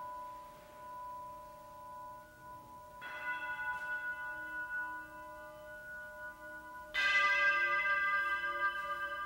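Struck metal instrument ringing with long, bell-like sustained overtones that waver slightly. It is struck again about three seconds in, and harder about seven seconds in, each strike adding bright new partials that ring on.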